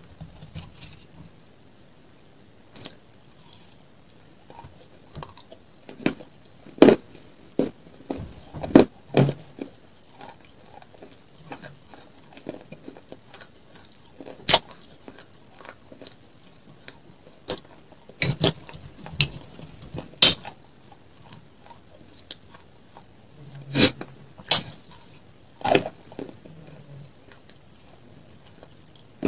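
A metal spoon clinks and scrapes against a glass tumbler in scattered sharp strikes, about a dozen over the stretch, between close-miked chewing and eating sounds.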